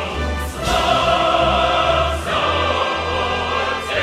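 Background music: a choir singing held chords over an orchestra, the chords changing every second or two over a steady low bass.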